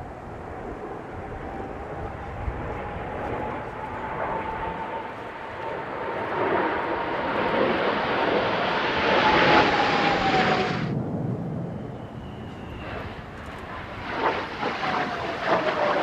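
Kawasaki T-4 jet trainers in formation passing overhead: the roar of their turbofan engines builds to a peak, with a whine that rises and then falls in pitch, and cuts off suddenly about eleven seconds in. A single T-4's roar follows near the end, uneven and gusty, its whine falling as it passes.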